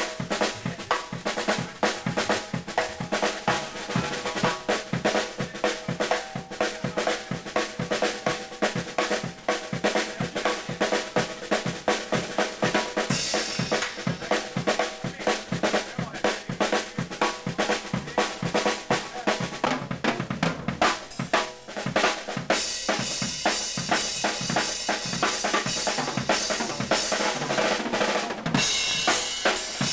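Drum kit being played: kick drum and snare hits with rimshots in a busy, steady pattern. The cymbals come up brighter about halfway through and again for several seconds near the end.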